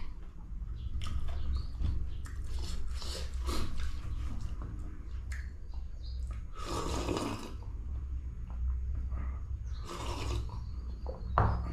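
Close-miked eating sounds: a person chewing fried pork, with two longer, louder breathy sniffs about seven and ten seconds in.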